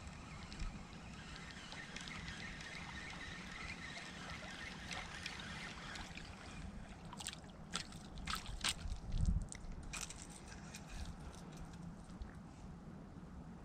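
Water sloshing and trickling, with a run of sharp clicks and knocks through the middle; the loudest is a dull thump about nine seconds in.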